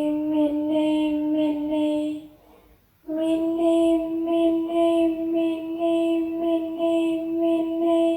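A high-pitched voice quickly chanting "mini mini mini" on one steady note, in two long runs with a short break a little over two seconds in.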